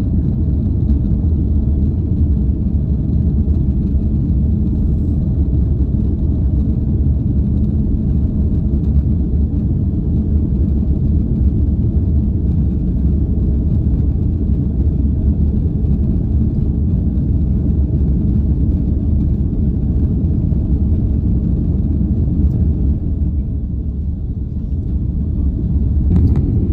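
Steady low rumble of engine and airflow noise inside the cabin of an Airbus A330-300 airliner, dipping slightly near the end.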